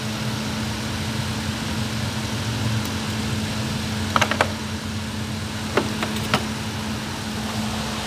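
Steady low mechanical hum from a running machine in the workshop, with a few light clicks past the middle.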